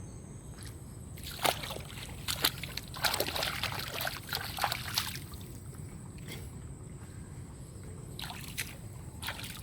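Water splashing and sloshing in irregular bursts. The splashes are busiest from about a second and a half to five seconds in, and come again near the end.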